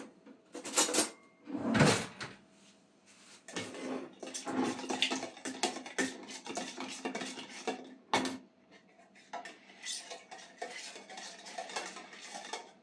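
A metal spoon scraping and clinking inside a tin can of tomato paste, stirring the paste with a little water into a sauce. There are a couple of louder knocks in the first two seconds and one sharp knock about eight seconds in.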